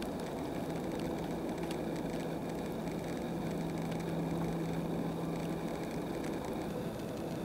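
Faint, irregular taps of a black woodpecker pecking at birch bark, over a steady low hum and rushing background noise.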